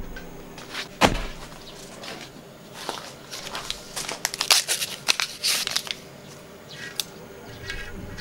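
Wooden chopsticks clicking and scraping against a cast-iron pot-lid griddle, a quick run of sharp taps in the middle, after a single knock about a second in.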